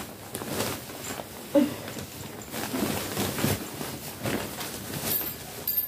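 Rustling and handling noises as plush Christmas toys are pulled out of a bag and turned over in the hands, irregular and crackly, with one sharper, louder noise about a second and a half in.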